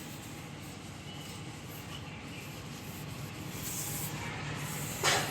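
A soft cloth rubbing and wiping over a tractor wheel rim, cleaning it for 2K paint. It makes a steady, soft rubbing hiss.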